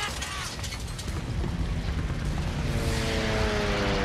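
Battle sound effects from a war film: a low rumble that grows louder, joined in the second half by the drone of an attacking aircraft's engine, falling slowly in pitch as it passes.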